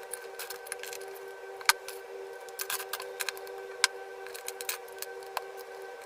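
Plastic Lego bricks clicking and rattling as pieces are handled and pressed together, with two sharper snaps about two and four seconds in, over a steady high hum.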